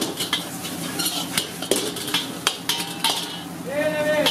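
Metal ladle and spatula clanking and scraping against an iron wok as stir-fried noodles are tossed, with irregular sharp metallic strikes.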